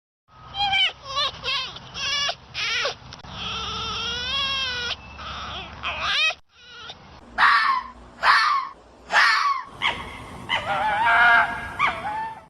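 A series of animal calls: several short falling cries, then a long call that wavers in pitch, three more loud falling cries, and another wavering call near the end.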